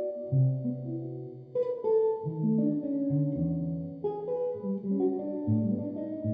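Solo archtop electric jazz guitar played through an amplifier in chord-melody style: chords over a moving bass line, with fresh chords struck about a second and a half in and again about four seconds in.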